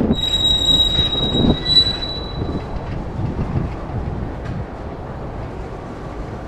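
Freight train tank cars rolling past on steel wheels, with a high, steady metallic wheel squeal for the first two and a half seconds or so, then only a low rolling rumble that slowly fades.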